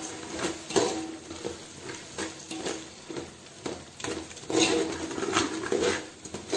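A slotted steel spoon stirring and scraping a thick onion-tomato masala with fresh coriander and mint leaves in an aluminium pot, in irregular strokes, with light sizzling of the oil and ghee.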